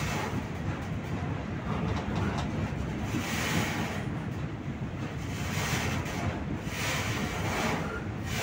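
Diesel freight locomotives rumbling as they approach, with wind buffeting the microphone in repeated hissing gusts.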